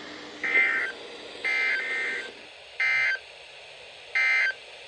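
Emergency Alert System end-of-message data bursts (the SAME digital code sent after a weather radio broadcast): a string of short, buzzy two-tone bleeps, each well under half a second and about a second apart, over faint radio hiss.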